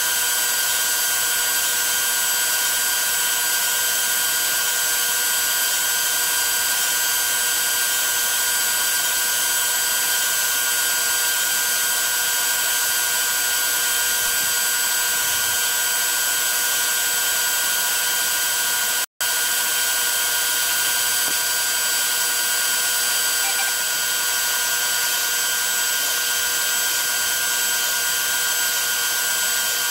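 DeWalt router on a Lowrider2 CNC spinning a 1/8" upcut bit through 1/4" aluminium plate, a steady high whine with cutting hiss. There is a momentary break about two-thirds of the way through.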